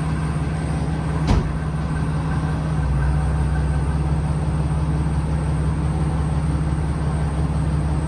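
Truck engine idling with a steady low hum, and a single sharp knock about a second in.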